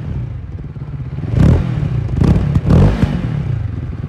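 2021 CFMoto 700 CL-X parallel-twin engine idling, with three quick throttle blips: one about a second and a half in and two more close together just after two seconds and near three seconds.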